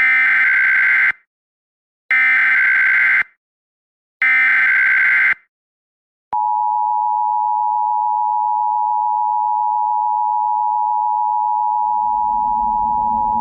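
Emergency Alert System tones: three short bursts of SAME header data warble, each about a second long and a second apart. About six seconds in, the steady two-tone EAS attention signal starts, announcing the blizzard warning message that follows.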